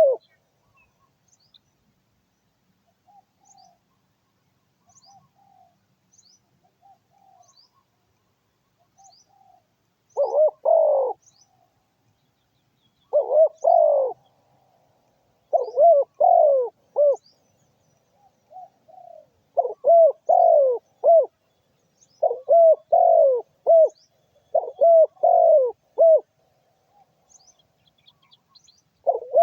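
A trained decoy dove cooing in loud repeated phrases of several low, falling coos, answered in the gaps by a fainter dove's softer coos. Faint high chirps of small birds are heard in the background.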